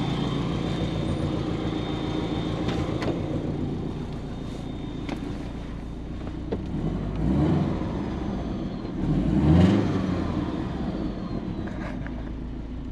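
Car engine idling steadily, revved briefly twice, about seven and nine and a half seconds in.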